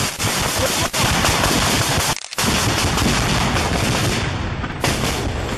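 Heavy, continuous automatic gunfire from an attacking helicopter, loud enough to overload the microphone, with a brief break about two seconds in and a fresh burst near the end.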